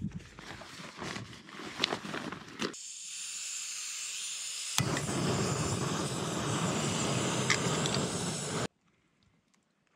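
Backpacking gas canister stove being lit: after a few handling clicks and rustles the gas valve opens with a steady hiss, a sharp igniter click comes about five seconds in, and the burner catches and runs with a fuller steady rushing flame noise, which cuts off suddenly near the end.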